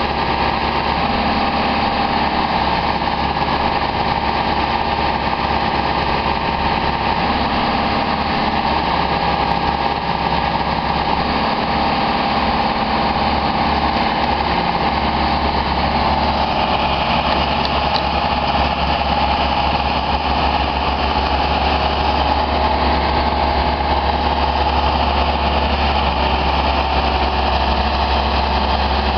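Genie S-80 telescopic boom lift's engine running steadily as the boom is operated from the platform, with a constant whine over the engine note. The sound grows a little brighter about halfway through.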